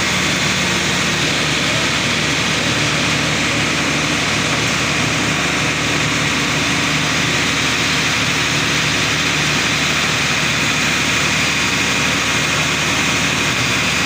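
Borewell drilling rig running steadily: a loud, constant engine drone with a hiss over it.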